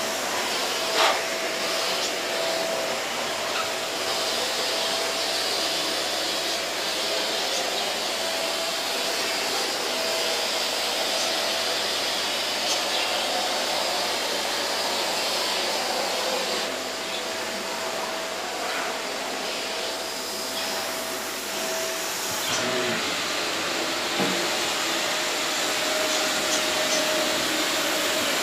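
Household vacuum cleaner running steadily, a constant rushing noise with a steady whine from its motor.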